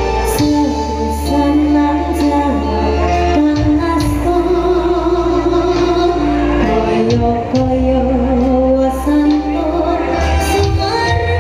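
A woman singing a Javanese campursari song with live band backing, amplified through a stage PA, her held notes sliding over a steady bass and percussion.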